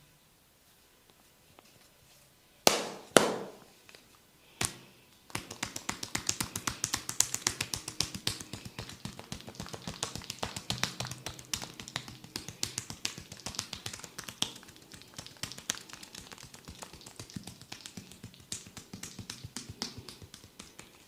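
Percussive massage strikes on a person's body: three loud single slaps, then a rapid, steady run of light taps, several a second.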